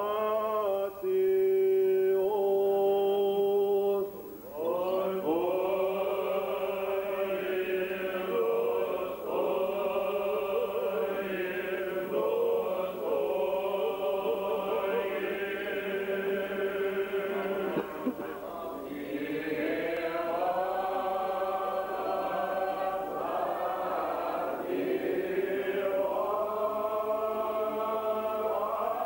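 Old Believer church choir chanting a slow liturgical melody in long, drawn-out notes. One note is held for the first four seconds, then after a short break the chant goes on without pause.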